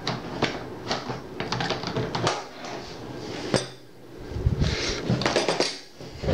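Metal clicks and clacks of a Uk vz. 59 machine gun's steel receiver and parts being handled on a wooden table, with one sharp click about three and a half seconds in, followed by a stretch of rubbing and shifting as the heavy gun is moved.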